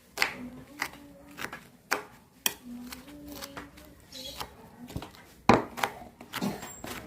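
Kitchen utensils knocking and clicking irregularly, about one or two sharp strokes a second, the loudest about five and a half seconds in, typical of hands-on food preparation. Faint voice-like tones run underneath.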